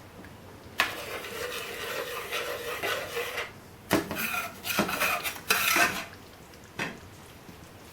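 A utensil stirring and scraping around a pan of curry sauce: one long scraping pass, then three shorter ones and a light knock on the pan near the end.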